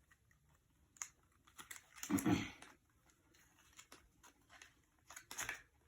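Small clicks and rustles of hands opening lipstick packaging, with one louder, longer sound about two seconds in.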